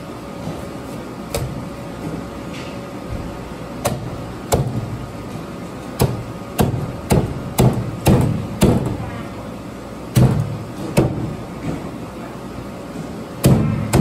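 Meat cleaver chopping a roast duck on a round wooden chopping block: about a dozen sharp chops, irregularly spaced, with a quick run of about two a second in the middle.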